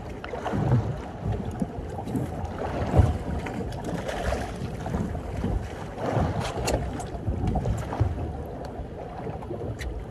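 Wind buffeting a phone microphone over water lapping against a small boat's hull, with scattered knocks and sharp clicks from handling on board.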